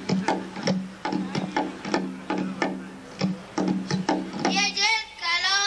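Tombak (Persian goblet drum) played in a steady rhythm, each low stroke ringing briefly. About four and a half seconds in, a child's voice starts singing over it.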